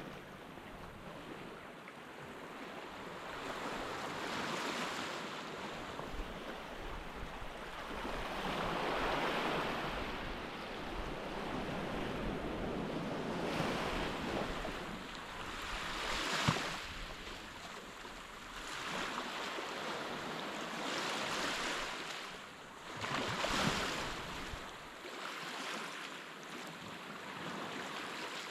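Surf washing onto a beach, the sound of the waves swelling and fading every few seconds, with a single sharp click about halfway through.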